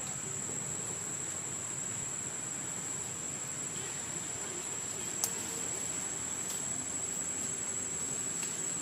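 Steady high-pitched insect drone, with a single sharp click about five seconds in.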